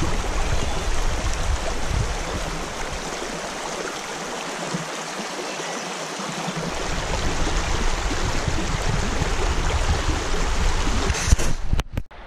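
River water rushing steadily, a dense even hiss, with a low rumble underneath that fades out in the middle and returns. The sound breaks off abruptly for a moment near the end.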